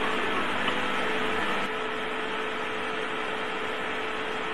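Steady electrical hum over a hiss from an induction heater's work coil and power supply. A lower layer of the hum drops out about two seconds in.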